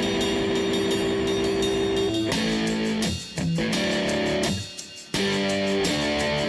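Background music led by guitar, playing held chords that drop out briefly twice, about three seconds in and again near five seconds.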